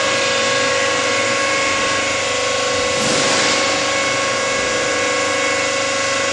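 Heavy machinery running steadily in a block-making plant, an even mechanical hum with a constant mid-pitched whine.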